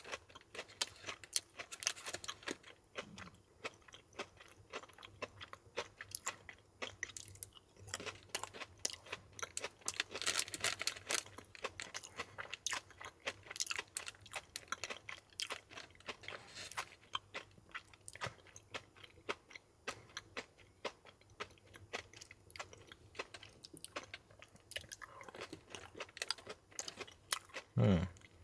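A person chewing and crunching Belgian chocolates filled with crispy rice puffs close to the microphone, a steady run of small crackly crunches. A short low hum near the end.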